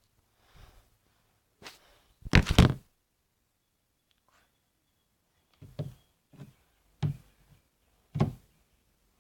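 A series of knocks and thumps: a loud cluster of several strikes about two seconds in, then five single knocks about half a second to a second apart in the second half.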